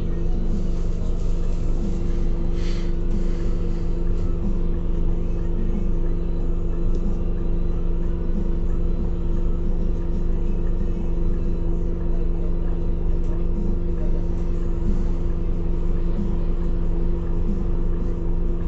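Inside a Scania Citywide 12LF CNG city bus standing still: the compressed-natural-gas engine idling, a steady low drone with a constant hum.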